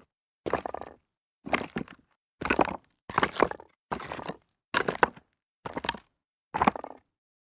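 Footsteps walking on loose rocks, each step a short crunching clatter of stones, about eight steps at roughly one a second. The steps stop near the end.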